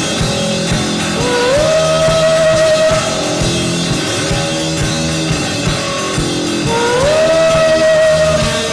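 Instrumental rock music with drum kit and guitar. A lead line slides up into a long held note, once about a second in and again near the end.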